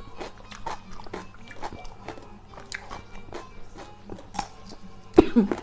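Close-up crunching and chewing of raw green vegetables, with irregular crisp bites and chews, a couple a second. Near the end there is a louder crunch followed by a brief hum of voice.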